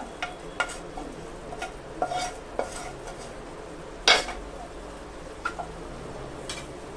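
Fried chicken pieces scraped with a wooden spatula out of one frying pan into another of boiling sauce: a run of knocks and scrapes of spatula and pan, the sharpest about four seconds in, over a steady low sizzle of the sauce.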